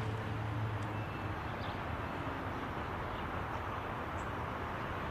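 Steady outdoor street ambience: a constant wash of distant traffic, with a low engine hum that fades out about a second in.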